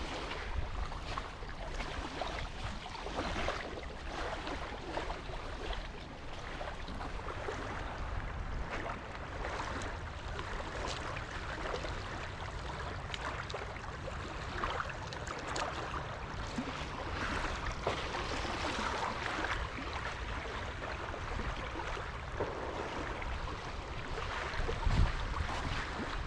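Footsteps crunching irregularly on a leaf-strewn trail, with wind rumbling on the microphone.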